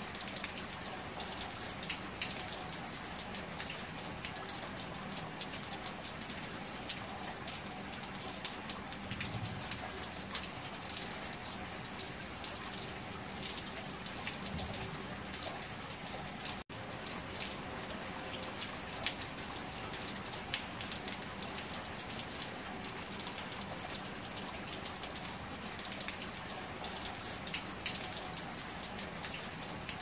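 Heavy rain splashing onto wet paving and standing water: a steady hiss dense with separate drop ticks, with a split-second dropout a little past halfway.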